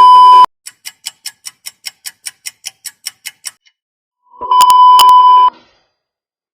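Stock sound effects: a high, steady censor-style bleep that cuts off about half a second in, then a run of about sixteen quick ticks at roughly five a second, then a second bleep lasting about a second.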